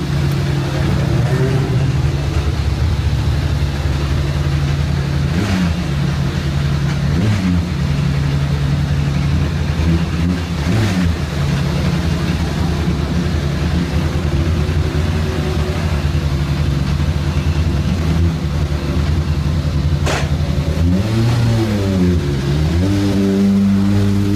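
Formula 3 car's Mercedes-HWA two-litre four-cylinder engine idling, with several short throttle blips. Near the end the revs rise and are held higher.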